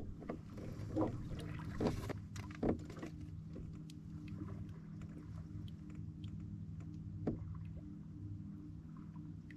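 Canoe paddling on a lake: a few sharp paddle strokes and knocks in the water, four in the first three seconds and one more near the end, over a steady low engine-like hum.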